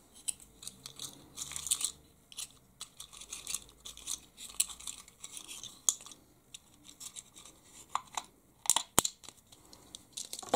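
Wooden cocktail sticks rattling and scraping against each other in a plastic holder as one is picked out, with scattered small clicks of handling and a single sharp tap near the end.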